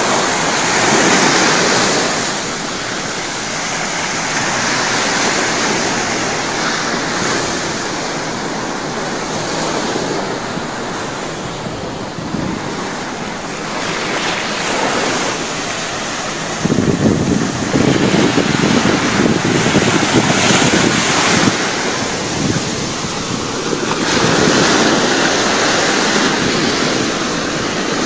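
Ocean surf breaking on a beach, a continuous rush that swells and eases with each wave. Wind buffets the microphone, heaviest as a low, gusty rumble in the second half.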